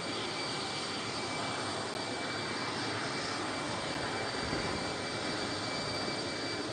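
Jet engines of a parked Antonov An-124 cargo plane running: a steady rushing noise with a thin, steady high whine.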